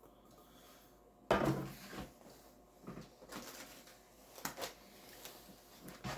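Groceries being handled and set down: a sharp knock on a hard surface a little over a second in, then rustling and several lighter taps and clunks of packaging.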